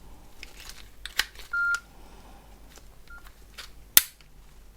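Plastic clicks from a Nokia 6680 mobile phone being handled and pressed, with two short electronic beeps from the phone, a longer one about a second and a half in and a brief one after three seconds. A sharp click about four seconds in is the loudest.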